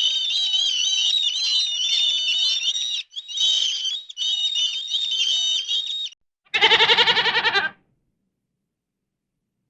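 A songbird singing a fast, high-pitched warbling song for about six seconds, broken twice briefly. Then a single quavering goat bleat lasting about a second.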